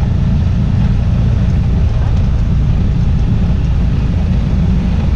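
Side-by-side UTV driving along a gravel road, heard from inside its enclosed cab: a loud, steady low rumble of engine and tyres.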